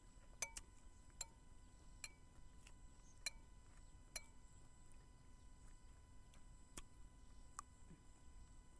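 Metal spoon clinking lightly against a ceramic bowl while scooping soup: a scattering of short, faint clicks with a brief ring, most in the first four seconds and a couple more near the end.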